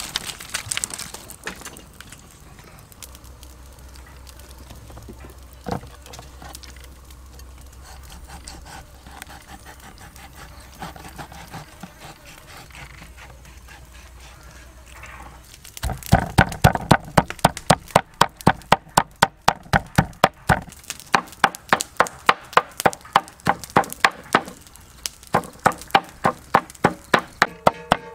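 Chopping on a wooden board: a fast, even run of sharp strikes, about three a second, starting a little past halfway, after a stretch of quieter clatter and handling sounds.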